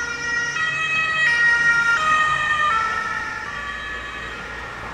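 Ambulance two-tone siren alternating between a high and a low note about every two-thirds of a second. It grows louder as it approaches, then its pitch drops about two seconds in and it fades away: the Doppler shift of a siren passing and moving off.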